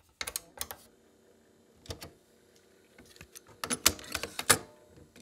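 Technics M260 cassette deck being handled: a series of sharp plastic clicks and clunks as the cassette door is pushed open and a tape is taken out and another dropped into the holder, the busiest clatter a little past the middle. A faint steady hum sits beneath.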